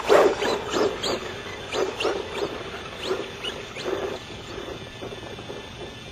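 Losi Speed T radio-controlled truck running on dirt, its motor surging in repeated short bursts of throttle, loudest right at the start.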